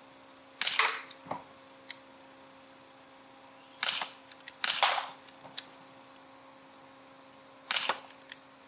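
Gamo P-430 CO2 air pistol firing four shots, each a sharp crack with a short tail, a few seconds apart, with a few faint ticks between shots.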